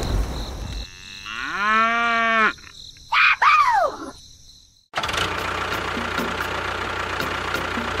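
A cow mooing: one long call held at a steady pitch, followed by two short, louder calls that rise and fall in pitch. After about five seconds a steady hiss with faint regular clicks follows.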